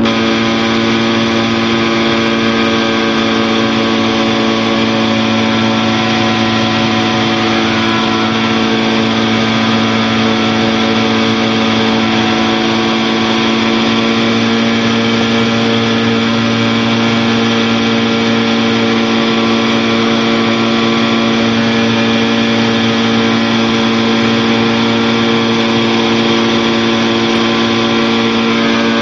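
Challenger II light-sport aircraft's engine and propeller running steadily at an unchanging pitch in cruise flight.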